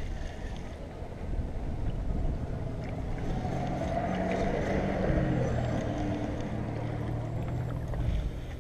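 Spinning fishing reel being cranked to retrieve a hooked fish, a steady low whirring whose pitch shifts as the winding speed changes, with wind buffeting the microphone.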